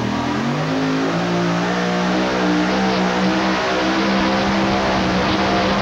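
Supercharged engine of a Pro Mod two-wheel-drive pulling truck at full throttle. Its pitch climbs during the first second, then holds high and steady as the truck pulls down the track.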